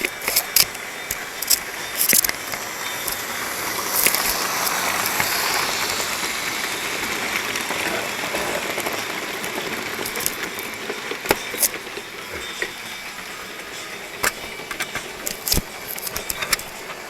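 Lima model diesel locomotive running along model railway track: a steady motor and wheel hum that grows louder for a few seconds and then eases off, with scattered sharp clicks.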